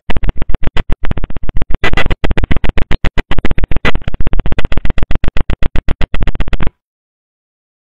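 Loud, rapid stuttering noise on a phone call line, about eight harsh bursts a second, cutting off abruptly near the end. It is a connection glitch that breaks up the call.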